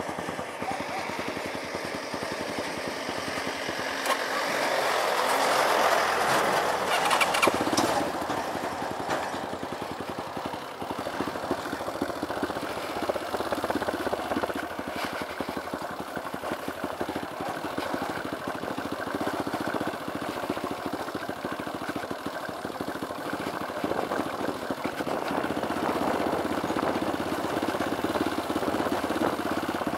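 Dirt bike engine running while the bike is ridden along a rough track, growing louder for a few seconds from about four seconds in, then steady.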